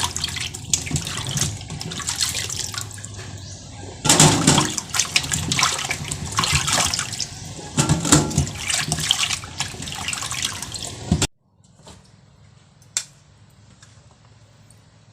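Water running from a tap into a sink, uneven and splashing, with knocks of things being handled in it; it cuts off abruptly about eleven seconds in, leaving a quiet background with a single click.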